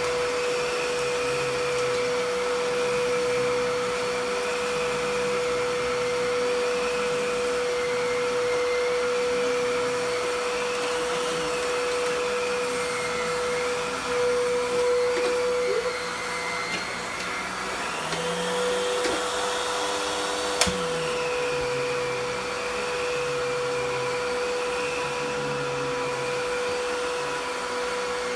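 Filter Queen Majestic canister vacuum running on high speed with its power nozzle pushed back and forth over carpet: a steady, not loud motor hum with a whine that wavers up and down. A single sharp click about two-thirds of the way through.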